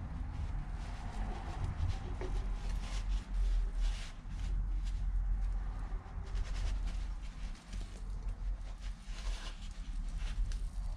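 Hands working a rubber dust boot and piston into a brake caliper: soft rubbing, small taps and clicks at irregular moments over a low steady rumble.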